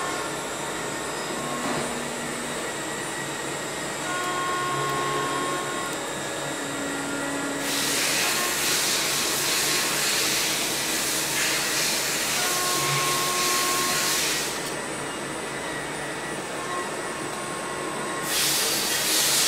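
Machine-shop background noise: a steady mechanical hum and hiss with short, faint tones, swelling into a louder hiss from about eight seconds in for several seconds and again near the end.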